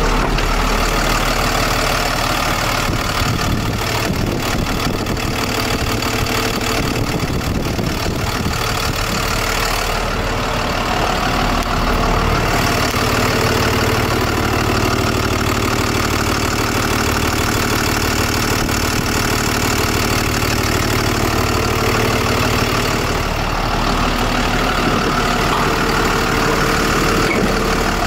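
The 6.7-litre Cummins ISB diesel engine of a 2018 International 4300 box truck idling steadily.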